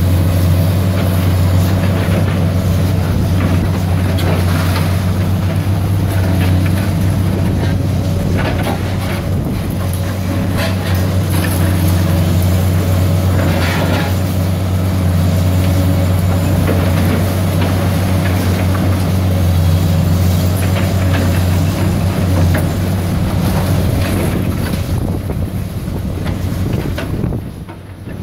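Diesel engines of high-reach demolition excavators running steadily under load, with scattered cracks and crunches as their hydraulic jaws break up reinforced concrete walls.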